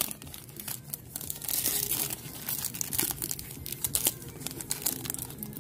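Foil wrapper of a Topps Chrome baseball card pack crinkling and tearing as it is pulled open by hand, an irregular run of crackles.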